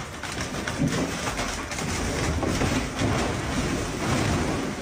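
Mine roof caving in: rock breaking away and falling in a continuous rumbling, crackling stream. It builds to its loudest about two to four seconds in.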